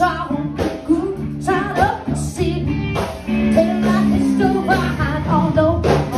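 Live band music through a PA: a woman singing lead over electric guitar and drums, with a steady beat.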